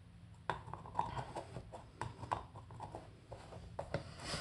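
Faint, irregular light taps and clicks of crafting supplies being handled on a table.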